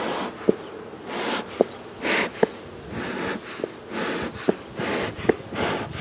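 Beekeeper's bellows smoker being pumped, puffing smoke over the hive frames: about seven short hissing puffs, roughly one a second, with a brief sharp clack from the bellows between them.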